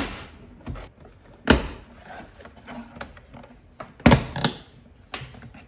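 Plastic interior trim on a car's B pillar being handled and pulled loose, giving a series of sharp knocks and clicks; the loudest come about a second and a half in and about four seconds in.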